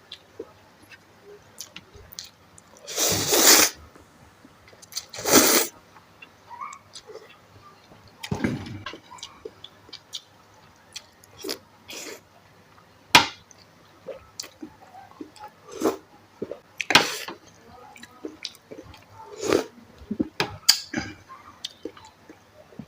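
Instant noodles with pork balls and boiled egg being eaten close to the microphone. Three long, loud slurps come in the first nine seconds, then chewing with scattered sharp clicks and smacks.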